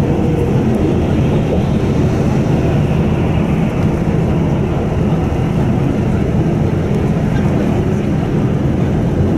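Steady road and engine noise heard from inside a vehicle travelling at highway speed.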